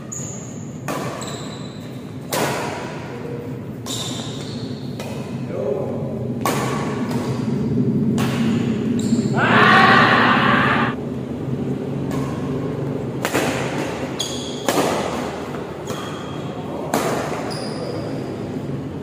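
Badminton rally: rackets striking the shuttlecock in sharp hits about once a second, over the steady hum of a large hall. A louder, longer sound about a second in length comes about halfway through.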